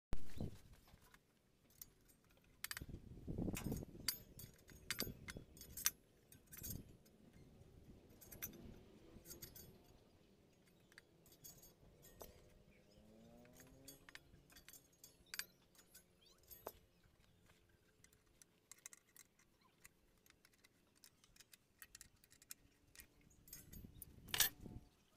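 Small metal parts and hand tools clinking, clicking and knocking as the blade and fence of a homemade table saw are adjusted by hand, with a few louder knocks near the start, around three to four seconds in, and near the end.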